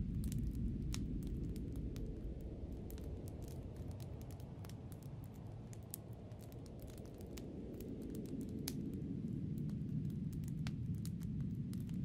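Low wind rumble that eases off in the middle and swells again near the end, over frequent sharp crackles of a wood fire.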